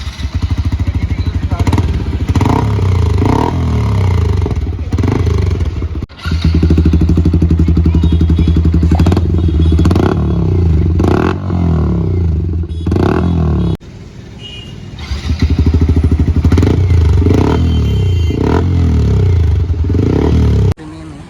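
Yamaha MT-15's single-cylinder engine run through a trial-fitted aftermarket exhaust, idling and revved up and down several times with a loud exhaust note.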